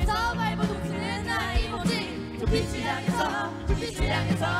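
A woman rapping a fast Korean pop verse into a microphone over a backing track with a steady drumbeat.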